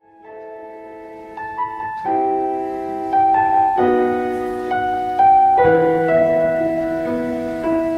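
Instrumental music: slow, sustained keyboard chords start from silence and change every second or two, growing louder about two seconds in. No voice.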